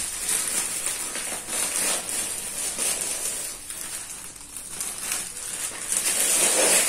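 Clear plastic packaging bag crinkling and rustling as it is handled and pulled at to tear it open. The crackle eases off a little around the middle and picks up again near the end.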